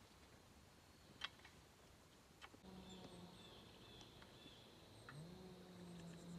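Near silence: faint outdoor quiet with a few soft clicks, then a faint steady hum about halfway through.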